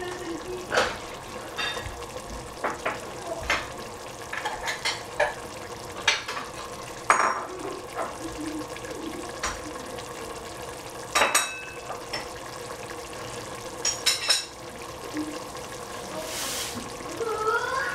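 Spicy tofu sizzling in a pan as it is stirred, with a spatula knocking and scraping against the pan at irregular moments.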